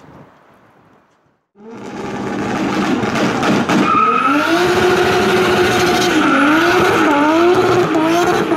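A car doing a burnout: the engine held at high revs with the tyres squealing in a wavering pitch. It starts abruptly about a second and a half in, after a moment of faint wind noise, and stays loud.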